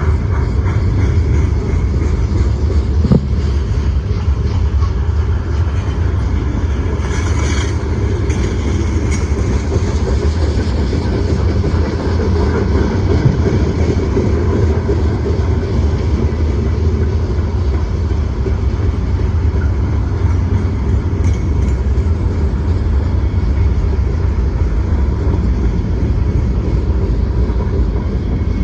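Freight train cars rolling past: a steady rumble of steel wheels on rail, with a brief hissing screech about seven and a half seconds in.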